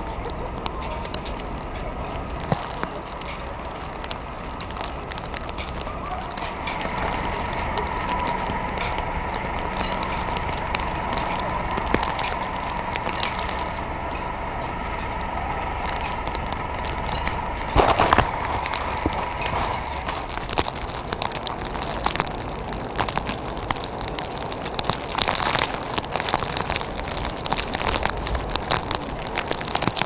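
Strong blizzard wind buffeting the camera microphone: a steady low rumble and rushing noise with many crackles and clicks. A faint steady tone runs through the middle, and there is one sharp knock a little past halfway.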